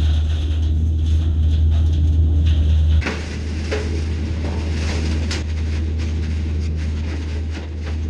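Hay blower fan running with a steady low hum as it blows hay through its pipe. About three seconds in the sound shifts and turns less loud, and a few sharp knocks and scrapes are heard as hay is forked into the blower's intake.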